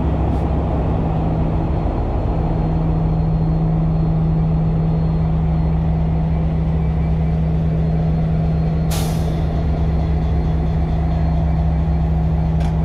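Class S14A diesel multiple unit power car idling at a standstill: a steady diesel drone with a strong hum. A sharp air hiss from the brakes about nine seconds in.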